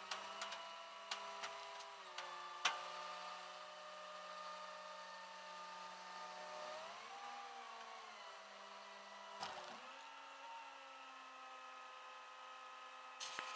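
Flatbed tow truck running, a steady hum whose pitch dips and rises a little a couple of times, with light metallic clicks and knocks of chain and tie-down hardware, the sharpest about two and a half seconds in.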